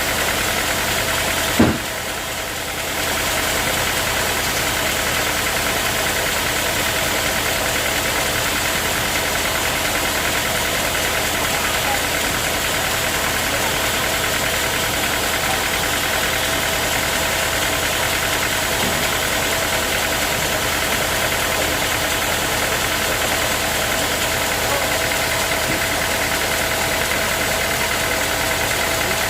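Sawmill saw running steadily: a constant machine noise carrying a steady whine. About a second and a half in there is one sharp knock, and the sound drops for about a second before returning to the same steady level.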